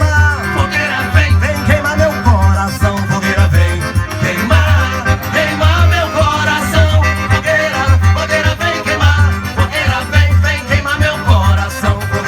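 Live forró band music: accordion melody over a steady, heavy bass-drum and bass beat.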